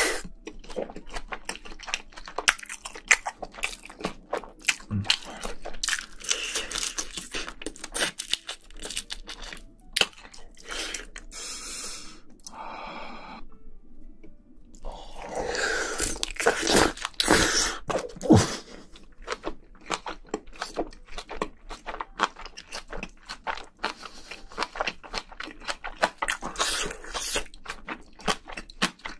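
Close-miked chewing and crunching of spicy braised seafood with bean sprouts and rice: a rapid, uneven run of wet, crunchy bites.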